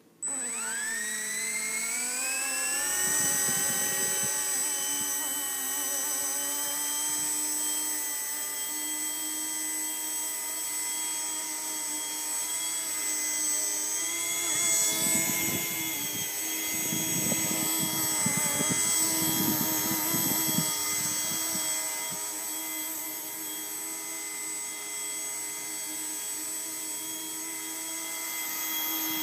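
Blade mSR X micro RC helicopter's electric motors and rotors whining as they spool up over about two seconds, then holding a steady high whine with small shifts in pitch. Gusts of low rumble come and go, once early and again for several seconds in the middle.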